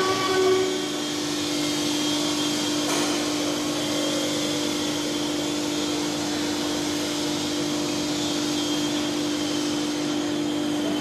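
Steady mechanical hum and hiss of an animatronic dinosaur's drive running while it moves its head and body, with a constant whine underneath.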